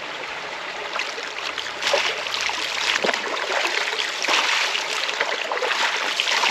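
River water flowing and splashing around a person wading knee-deep. The splashing grows louder about two seconds in and continues in quick, irregular splashes.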